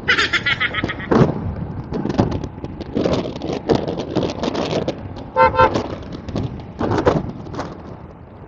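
Vehicle horn honking, once right at the start and again in a quick series of beeps about five and a half seconds in, over steady wind and road noise from riding a motorcycle.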